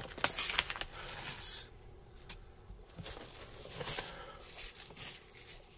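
Plastic shrink wrap being cut with scissors and pulled off a cardboard box lid, crinkling, with several sharp clicks in the first half second and a quieter pause about two seconds in.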